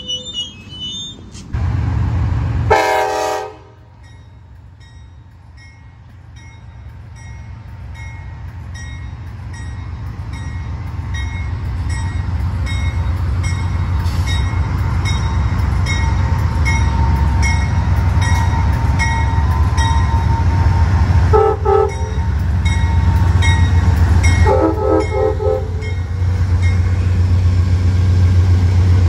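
Diesel train horn sounding a chord about three seconds in, then a diesel locomotive approaching with its low engine rumble growing steadily louder. Regular ringing strokes, about one and a half a second, run over it, and the horn gives two short blasts near the end as the locomotive draws alongside.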